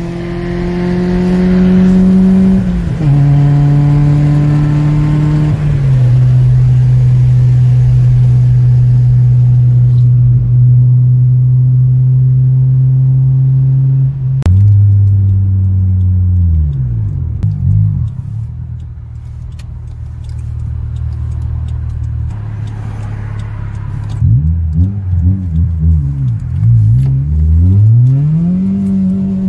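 Toyota Corolla E11's turbocharged 4E-FTE 1.3-litre four-cylinder engine, heard from inside the cabin through a 3-inch stainless exhaust with resonators. Its note rises under acceleration and steps down twice in the first six seconds as it is shifted up, then holds steady at a cruise. About halfway the throttle closes and the revs drop, and near the end the revs swing up and down several times.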